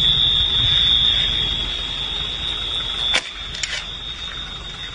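An electronic alarm sounding one continuous high-pitched tone over a low rumble, with a sharp click about three seconds in.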